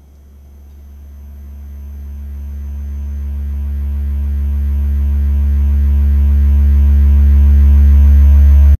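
A low humming drone with a few higher steady tones over it, swelling steadily louder to very loud and then cutting off abruptly.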